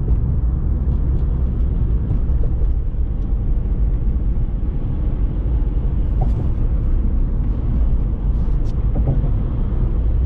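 Steady low rumble of a car driving at road speed, heard from inside the cabin: engine and tyre noise on the road surface.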